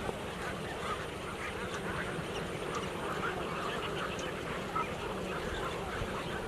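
A large flock of waterbirds calling at once: many short overlapping calls making a dense, continuous chatter.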